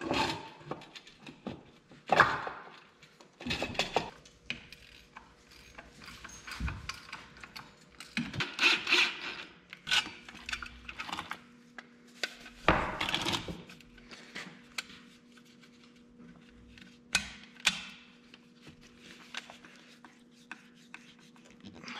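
Stainless-steel submersible well pump parts handled and fitted together on a workbench: irregular clicks, taps and metal scraping as the pump body, motor and perforated intake screen are put together. Near the end comes the turning of screws with a screwdriver.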